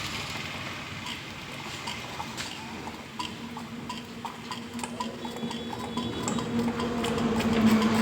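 Motorcycle engine running steadily with a light, rhythmic ticking over its hum; the hum grows louder near the end.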